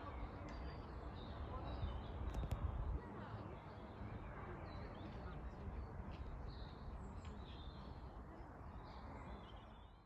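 Small birds chirping and calling in park trees, over a low rumble that swells about two to three seconds in.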